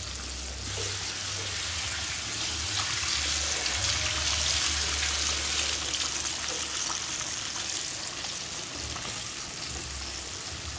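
Flour-coated chicken pieces deep-frying in a wok of hot oil, still cooking through: a steady, even sizzle.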